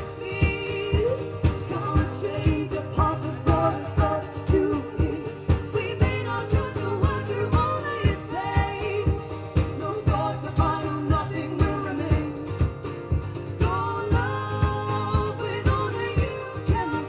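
Live band music: instruments playing over a steady beat, with voices singing.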